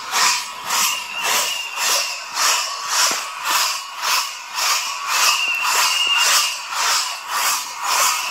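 Bells on the winter mummers' costumes jangling in a steady beat a little under twice a second as the band marches, with two short, steady whistle blasts, about a second in and about five seconds in.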